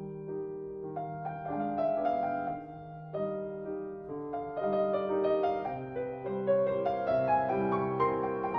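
Piano music: chords of sustained notes under a moving melody line.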